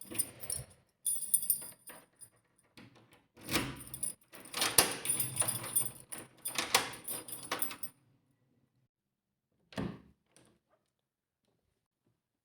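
Keys jangling and clicking at a door, with rattles and knocks for several seconds, then a single thud about ten seconds in.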